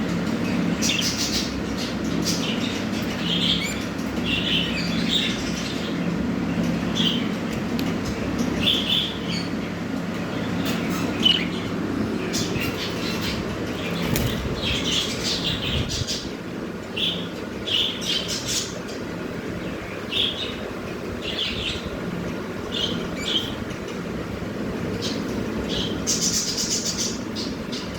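Adult pied budgerigars giving short scattered chirps, with quick wing flutters and scratchy clicks among them, over a steady low background hum.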